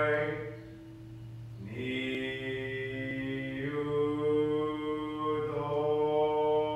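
Buddhist sutra chanting: voices drawing out long held notes, stepping to a new pitch about two seconds in and again near the end.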